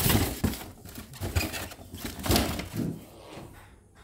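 Handling noise: irregular rustling and light knocks of an embroidery machine being moved in its foam-packed shipping box, loudest at the start and fading away.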